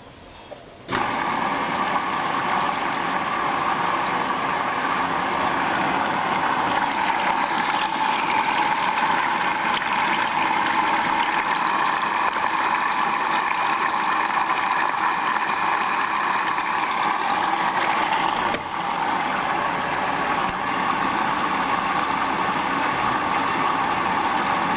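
Hoover washing machine filling with water: the inlet valve opens suddenly about a second in and water rushes in with a steady hiss, dipping briefly once late on.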